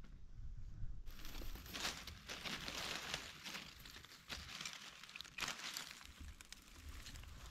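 Dry leaf litter crackling and crunching underfoot and under hand on the forest floor during mushroom picking, an irregular rustle starting about a second in.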